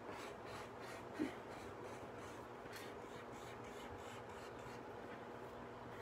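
Marker pen drawing on paper: faint, short scratchy strokes repeating as the outline is traced. There is one brief low sound about a second in.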